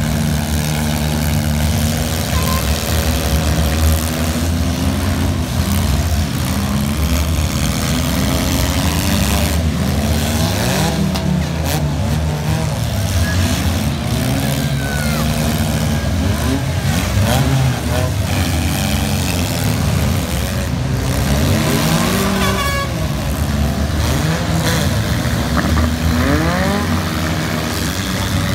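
Several demolition derby cars' engines running and revving at once, their pitch repeatedly rising and falling.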